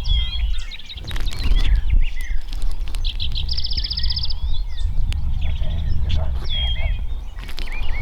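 Small birds singing, with a rapid high trill a little over three seconds in, over wind rumbling on the microphone.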